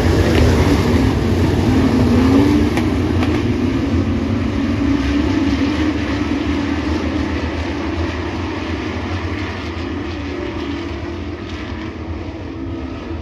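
Several dirt-track Super Truck race engines running at speed around the oval, their pitch rising in the first couple of seconds. The sound then slowly fades as the trucks move off.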